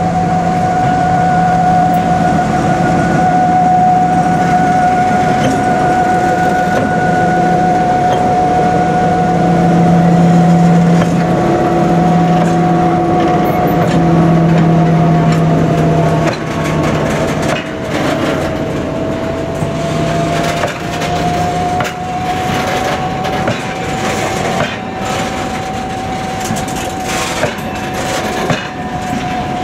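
An M62 diesel locomotive passing close by, its two-stroke V12 engine running loud for the first half, then a freight train of covered hopper wagons rolling past with wheels clicking and knocking over the rail joints. A steady high-pitched tone runs underneath the whole pass.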